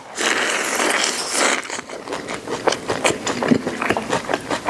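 Close, crunchy chewing of a mouthful of roast duck pancake roll wrapped around crisp raw napa cabbage (Qianlong cabbage), picked up close by a clip-on microphone. There is a loud crunching bite for about the first second and a half, then a quick run of crunchy chews.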